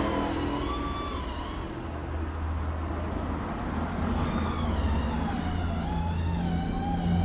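Hyundai Santa Fe engine idling steadily with the air conditioning running while refrigerant is charged. Its low hum grows stronger about two seconds in, under faint background music.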